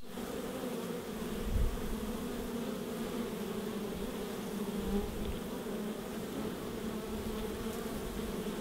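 Honey bees massed at a hive entrance, buzzing in a steady, even hum, with a brief low thump about a second and a half in.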